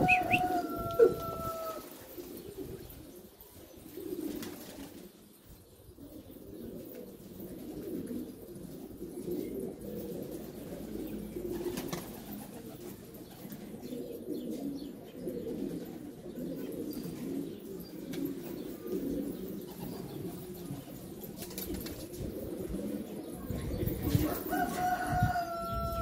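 A flock of domestic pigeons cooing, a continuous overlapping low murmur. A drawn-out, slightly falling call sounds twice, near the start and just before the end, and a sharp click comes about a second in.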